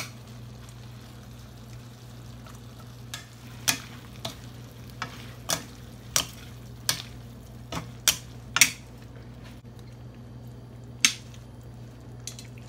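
A beef, onion and tomato stir-fry sizzles faintly in a stainless steel skillet as plastic and wooden spatulas stir and scrape it, knocking against the pan about a dozen times at irregular intervals. The loudest clacks come around two-thirds of the way through. A steady low hum runs underneath.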